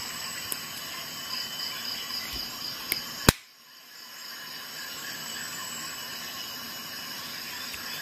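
Folding tools of a Victorinox Swiss Army knife being closed: a few light clicks, then one sharp, loud snap a little over three seconds in as a tool springs shut, over a steady background hiss.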